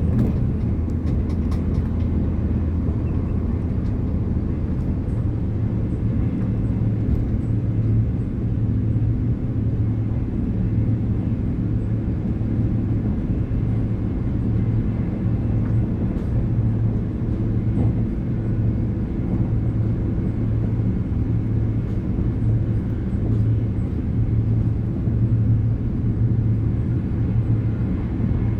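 Train running steadily at speed, heard from inside the carriage: an even low rumble from the wheels and running gear.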